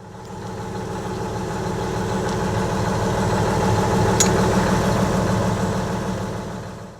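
Diesel engine of a Verney railcar running steadily, fading in at the start and out at the end, with a single sharp click about four seconds in.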